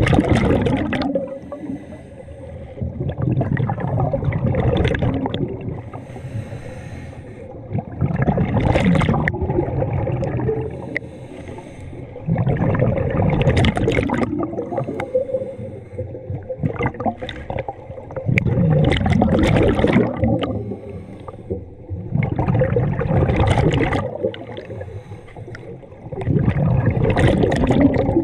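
Scuba diver breathing underwater through a regulator: a gurgling rush of exhaled bubbles every four seconds or so, seven times, with quieter inhalations between.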